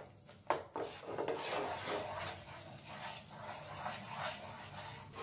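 Wooden spatula scraping and stirring gram flour roasting in ghee in a nonstick frying pan, in repeated rasping strokes.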